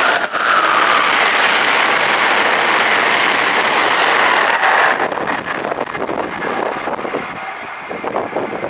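Amtrak Carolinian passenger train with Amfleet coaches passing through the station at speed on the near track: a loud, steady rush of wheels on rail and air. It drops away after about five seconds as the last cars go by, leaving a fading, uneven rattle.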